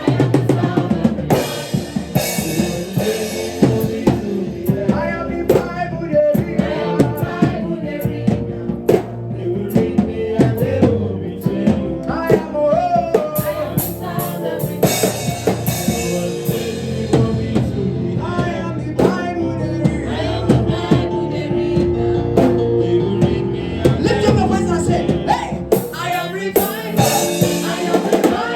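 Gospel worship music with a drum kit playing a busy beat of bass drum, snare and rim hits under sustained chords and singing.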